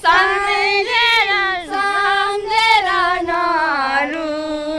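A high female or child voice singing a slow melody unaccompanied, holding long drawn-out notes that step up and down without clear words.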